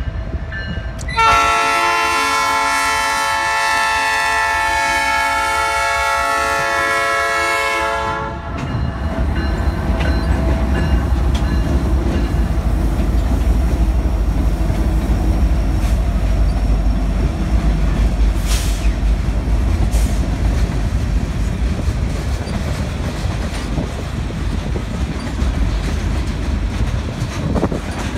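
A diesel freight train's air horn sounds one long chord-like blast. Then the Canadian Pacific diesel locomotives rumble past, followed by tank cars clacking over the rail joints.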